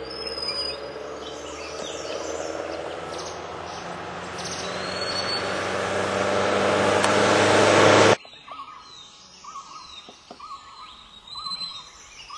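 A loud, steady rushing noise with a low hum grows louder, with a few high bird chirps over it, and cuts off abruptly about eight seconds in. After that a bird repeats a short call about every half second, with other small birds chirping.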